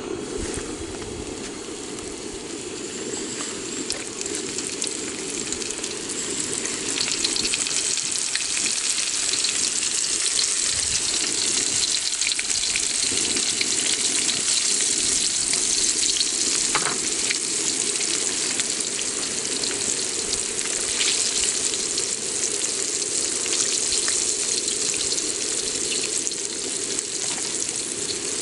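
Whole striped red mullet frying in hot oil in a wok: a dense sizzle that grows louder over the first several seconds as the fish go in, then holds steady, with the odd sharp crackle.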